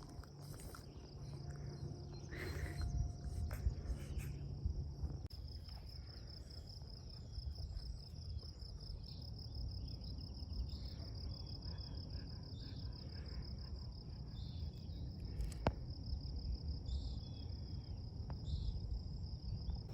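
Insects trilling steadily in a high, even drone, pulsing quickly from about five seconds in, over a low outdoor rumble.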